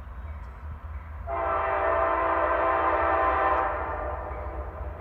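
Air horn of a CSX GE freight locomotive sounding one long multi-tone blast of about two and a half seconds, starting a little over a second in, over a steady low rumble. It is a warning blown on approach to a road grade crossing.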